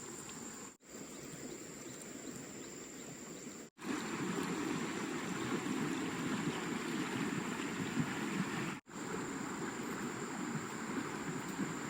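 Rushing stream water, a steady noise, broken by three brief gaps where clips are joined. It is louder and fuller after the second gap, about four seconds in.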